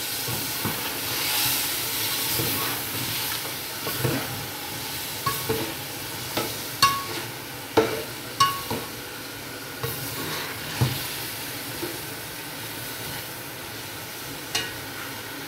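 Chicken, tomatoes and whole green chillies sizzling as they fry in a metal pot, stirred with a metal spoon that scrapes and knocks against the pot's side every second or so, some knocks ringing briefly.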